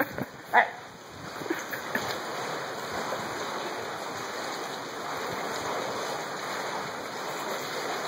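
Water washing against the pier's concrete pilings and seawall, a steady even rush. A couple of short sharp sounds come in the first second.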